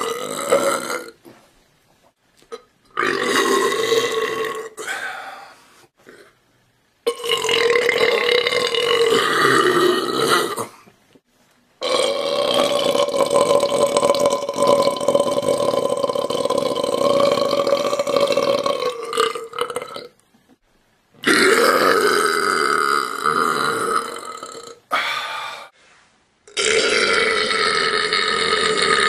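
A string of about six long, drawn-out burps with short pauses between them. The longest is held for about eight seconds in the middle.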